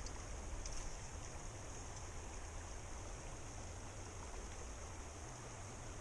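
Shallow, rocky mountain river flowing over stones: a steady, even rush of water.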